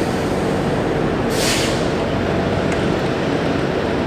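Passenger train standing at a station, heard from a carriage doorway: a steady mechanical hum from the train's running equipment, with a brief hiss of air about a second and a half in.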